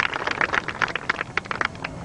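Crowd applauding, the clapping thinning out and dying away near the end.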